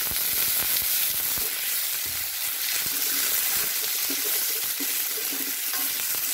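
Baby corn frying in hot oil in a wok, a steady sizzle, stirred with a spatula that scrapes and knocks against the pan now and then.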